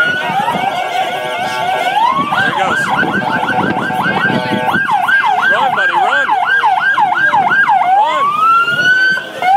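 Ambulance siren switching between patterns. It opens with a rising wail, changes about two seconds in to a fast warble of roughly three to four up-and-down sweeps a second, and near the end goes back to a long rising wail, over crowd noise.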